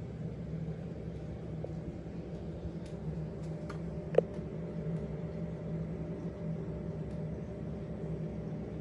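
Steady hum of reef aquarium pumps and powerheads running. A few light clicks, with one sharper click about four seconds in.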